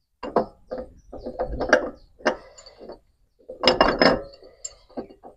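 Irregular metallic clicks, clinks and knocks of engine parts being worked by hand as a part of a Perodua Kancil engine is pulled out. The busiest cluster comes a little before two-thirds of the way through.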